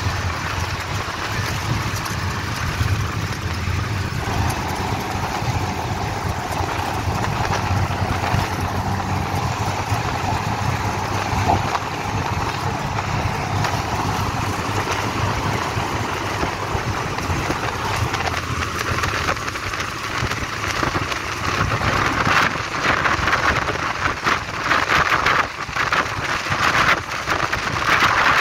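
Steady engine hum and road noise from inside a vehicle travelling at speed over a bridge. A rushing wind noise grows louder and gustier over the last several seconds.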